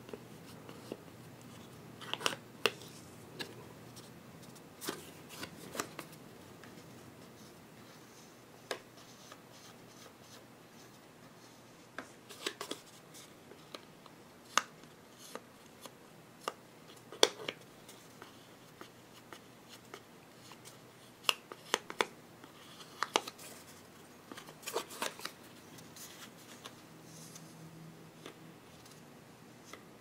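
A card scraping and tapping as it spreads thermal paste thinly across a CPU's lid: faint, irregular clicks and short scrapes with quiet gaps between strokes.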